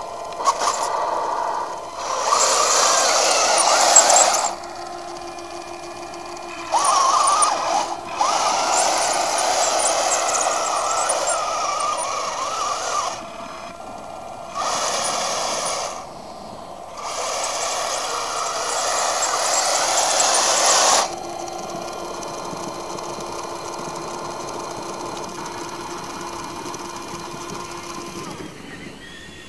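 Radio-controlled model tank driving in stop-start bursts of several seconds: a high electric whirring of its drive motors and gearboxes, dropping to a quieter steady hum between bursts and after the last one.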